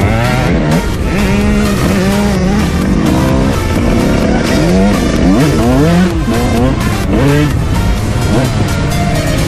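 Sport quad ATV engines revving hard, their pitch climbing and dropping again and again as the riders accelerate and back off, with more than one engine overlapping.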